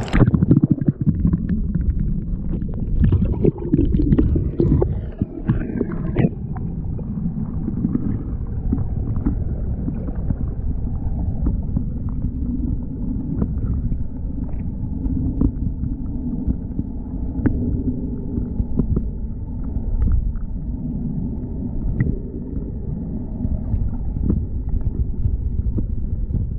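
Muffled low rumble and gurgle of sea water surging in a rock hole, heard by a submerged GoPro, with a few knocks and scrapes in the first several seconds.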